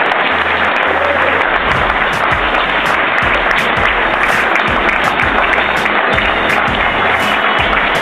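A banquet-room audience applauding steadily while music plays underneath.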